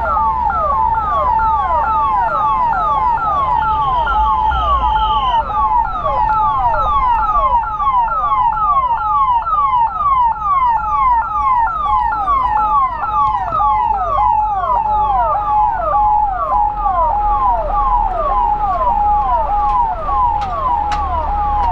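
Police convoy siren sounding continuously in a fast repeating pattern: a steady tone broken about twice a second by a quick jump up in pitch and a fall back. A low rumble of traffic runs underneath.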